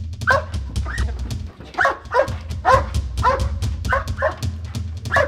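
German Shepherd police dog barking repeatedly, about ten sharp barks, over background music with a steady beat.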